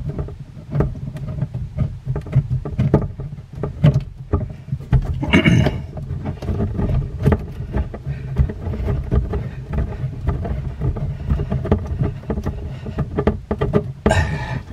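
Small irregular clicks and scrapes of a braided faucet supply line's metal nut being hand-threaded onto a quarter-turn shutoff valve, over a steady low rumble.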